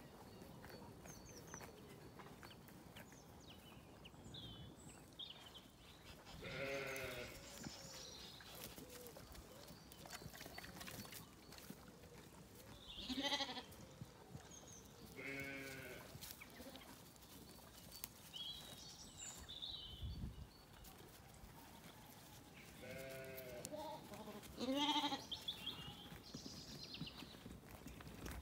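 Zwartbles lambs bleating: about five quavering bleats spread through, the loudest about halfway and near the end.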